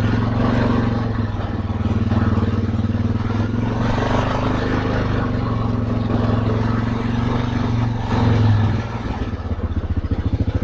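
ATV engine running steadily as the quad rolls slowly along a gravel drive. About nine seconds in it rises briefly, then drops to a lower, evenly pulsing idle.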